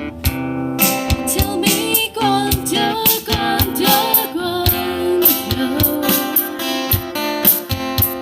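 Band music with strummed acoustic guitar and a drum beat, with a wavering melody line over them.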